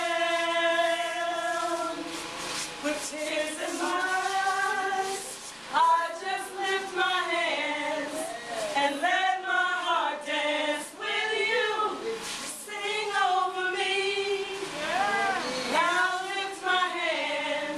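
A choir of mostly women's voices singing a worship song, with long held notes and sliding phrases.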